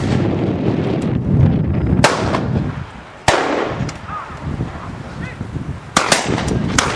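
Shotgun shots fired at driven pheasants: sharp reports about two seconds in, another a little over a second later, and a close pair near the end, each trailing off in an echo.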